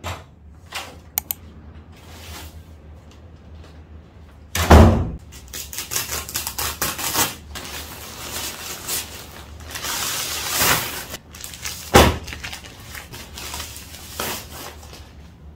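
Household handling noises: a few small clicks, then a sharp knock about five seconds in, several seconds of rustling and scraping, and a second sharp knock about twelve seconds in.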